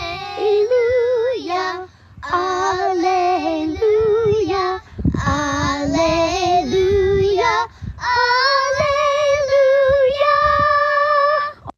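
Three young children singing a short song together in four phrases, ending on a long held note.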